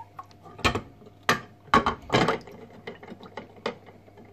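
A brass letterbox plate with a sprung flap being pressed and shifted by hand in a glass dish: irregular clicks and knocks of metal against glass, with four louder knocks in the first half and lighter clicks after.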